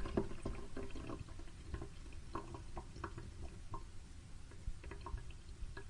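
Water dripping irregularly into a sink from a shut-off tap, with scattered small drips and a faint trickle.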